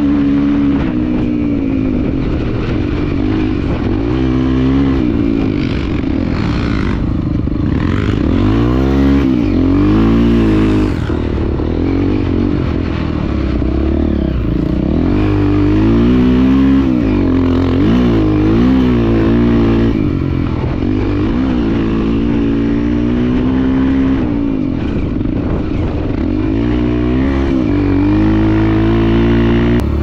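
Single-cylinder trail motorcycle engine running under load, its pitch rising and falling again and again as the throttle is opened and closed.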